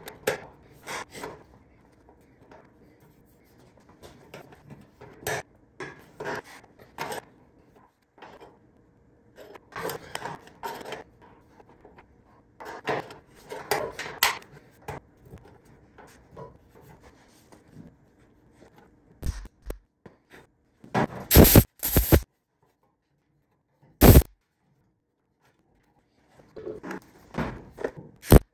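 Irregular scraping and rubbing as a steel patch is worked by hand into the old fuel filler hole in the cab's sheet metal. In the last third come several short, loud bursts of MIG tack welding on the patch.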